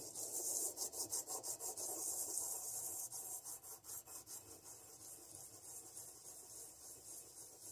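Lubricated sandpaper rubbed back and forth by hand over the end of a Kohler M18 exhaust valve stem. It makes a rhythmic scratching at about four strokes a second, growing fainter about halfway through. The stem end is being ground down to bring the valve-to-lifter clearance to spec.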